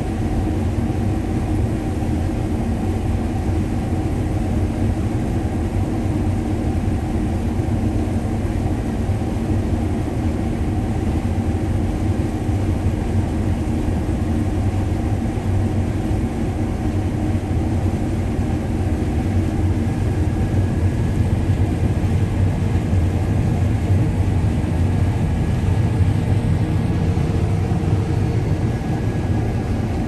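Steady drone of a combine harvester's engine and threshing machinery, heard from inside the cab while it harvests corn.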